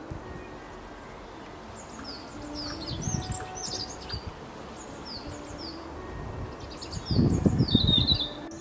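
Small songbirds chirping, a scatter of short, high notes that mostly fall in pitch, busiest around three seconds in and again near the end. A louder, low, rough noise comes in about seven seconds in and lasts about a second.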